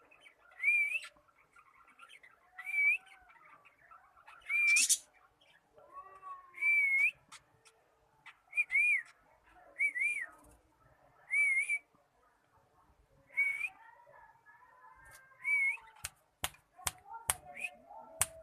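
A short whistled note, rising then dipping, repeated about every one and a half to two seconds: the tune a cockatiel is being taught to sing. Softer warbling falls between the notes, and a quick run of sharp clicks comes near the end.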